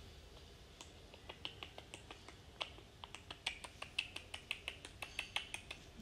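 Rose-ringed parakeet making a series of sharp clicks, a few at first and then about six a second.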